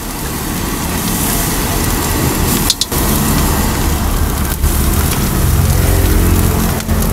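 Egg and spice paste sizzling in a steel wok over a steady low rumble, with the metal spatula scraping the pan and clinking against it twice.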